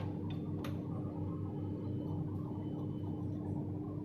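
Steady low hum with one constant tone held throughout, and two light clicks within the first second.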